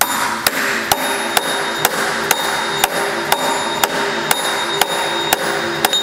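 A rubber-faced hammer with a steel end strikes a new front crankshaft pulley again and again, driving the pulley onto the engine's crankshaft. The blows are steady and evenly spaced, about two a second.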